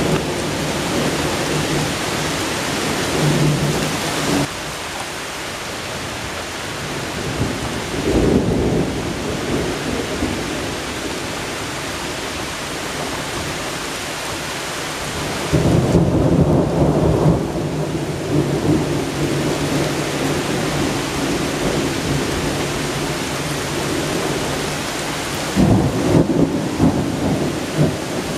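Thunderstorm: steady heavy rain with rolling thunder, a short rumble about a third of the way in, a long loud rumble from about halfway through lasting several seconds, and another burst of rumbling near the end.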